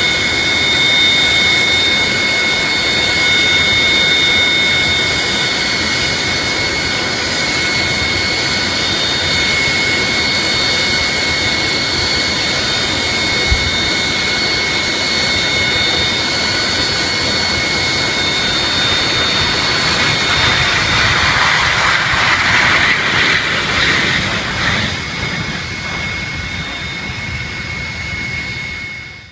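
Jet engines of a Boeing 737 airliner running with a steady high whine. About two-thirds of the way through, a broader rushing noise swells over it, then fades.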